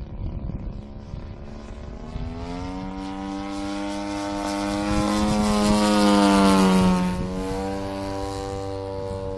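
Engine and propeller of a 35%-scale Sbach radio-controlled aerobatic plane making a pass: the drone grows louder and rises a little in pitch over the first few seconds, is loudest about six to seven seconds in, then drops in pitch as it passes and eases off.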